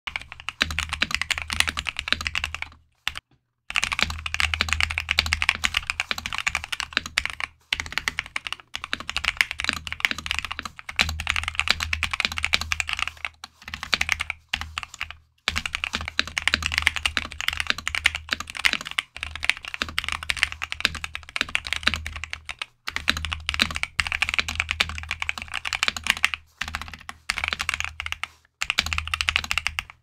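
Fast, continuous typing on a compact mechanical keyboard: a dense run of key clacks in long stretches, broken by several short pauses. Part of it is typed with foam damping fitted inside the keyboard case and part with the case foam removed.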